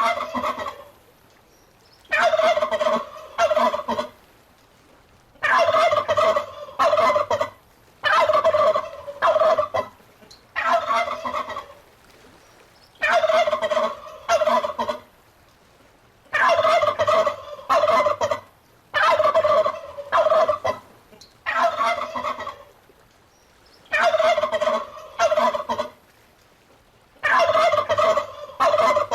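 Turkey gobbling over and over, each gobble a rapid rattling call of one to two seconds, coming about every two to three seconds with short quiet gaps between.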